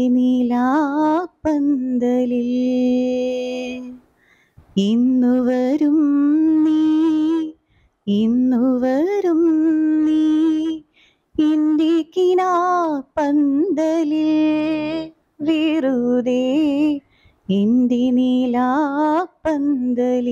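A woman singing solo with no accompaniment: slow phrases with long held notes, each followed by a short pause for breath.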